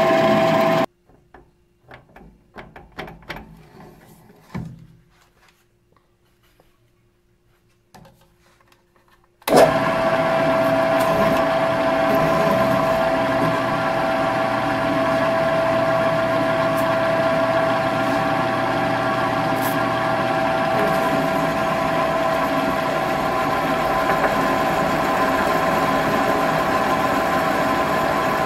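Drill press motor running with the bit cutting into a steel tube, a steady machine hum with a strong tone. About a second in, the hum drops away for about eight seconds, leaving scattered knocks and clinks. Then it comes back suddenly and runs steadily to the end.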